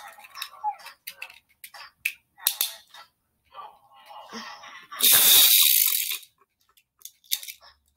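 Small plastic clicks and rattles of a Beyblade top being handled and its parts snapped together. A loud hissing noise lasting a little over a second comes about five seconds in.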